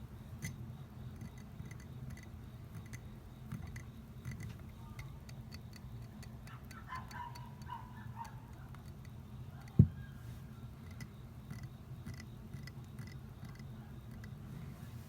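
Quiet room sound with a steady low hum and many faint small ticks. A brief pitched chirping comes about halfway through, and one sharp thump, the loudest sound, comes about ten seconds in.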